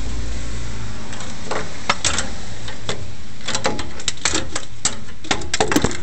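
Irregular metallic clicks and taps from header bolts and hand tools being handled while the bottom bolts of a long-tube header are started by hand, over a steady low rumble. The taps come in a few scattered clusters and grow busier past the middle.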